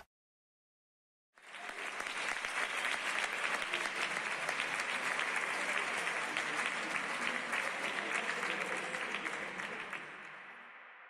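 An audience applauding: dense clapping starts about a second and a half in, holds steady, and fades out near the end.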